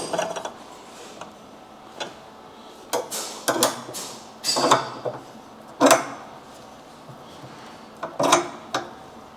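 Clamps being tightened to hold a steel bull bar against a kei truck's chassis mounting blocks: a handful of separate metallic clicks and clanks at irregular intervals, with quiet gaps between them.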